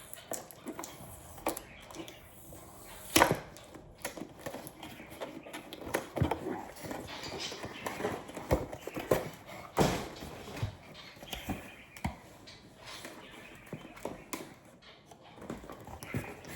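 Hands prying and tearing at cardboard packaging: irregular scrapes, rustles and small knocks, with a sharp knock about three seconds in and another near ten seconds.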